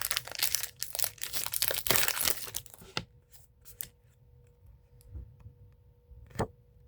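Foil Pokémon booster-pack wrapper being torn open and crinkled for about three seconds. Then a few faint clicks and one sharp click near the end, over a faint steady hum.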